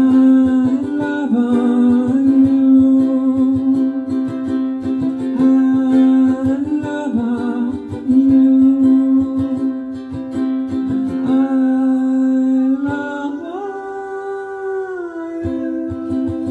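A man humming the song's melody in long held notes over a strummed ukulele.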